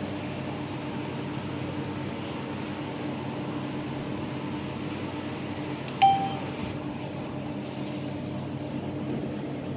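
Go Card ticket vending machine giving one short electronic beep about six seconds in, the confirmation of a touchscreen button press, over a steady low hum.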